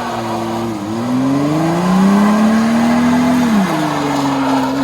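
2001 Toyota Tacoma pickup's engine revving hard during a burnout over a steady hiss: the pitch climbs about a second in, holds high, drops after about three and a half seconds and starts climbing again near the end.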